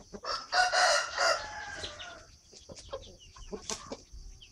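Chicken giving one long crowing call lasting about two seconds, followed by soft clucks and short chirps.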